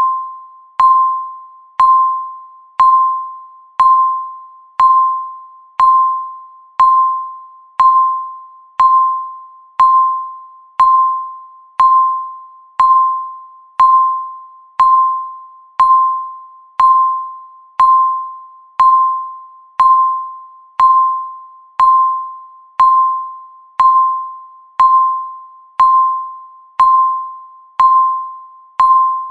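Countdown timer beep sound effect: a single bell-like ding once every second, each one struck and fading away before the next, marking off the seconds.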